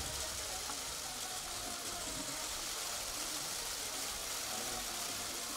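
Steady room noise of a large hall, a constant hiss with faint, indistinct voices in the background.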